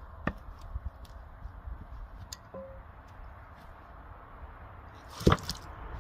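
Cut maple firewood being handled and stacked with a pickeroon: a few light wooden knocks, then one loud wooden clunk about five seconds in.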